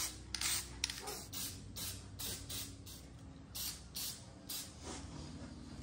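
Aerosol can of black spray paint hissing in many short spurts, about two or three a second, as bare welded steel is spot-painted against rust.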